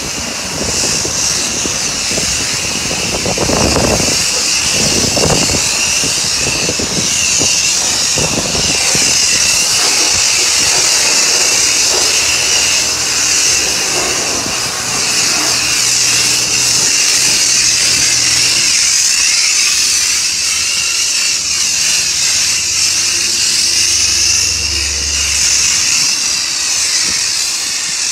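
A car wash's high-pressure spray wand jetting onto a foam-covered car body, a steady hiss.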